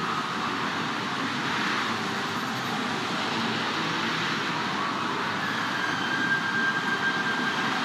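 Anime battle sound effect: a steady rushing rumble, with a faint thin high tone coming in about five seconds in.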